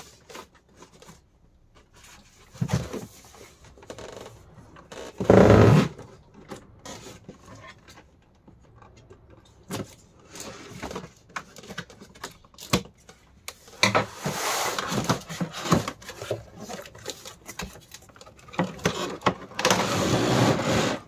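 Cardboard box and clear plastic packaging being handled: tape peeled, the box tipped and scraped across the bench, and the clear polycarbonate tray crackling and rustling as it is pulled out. A louder bump comes about five seconds in.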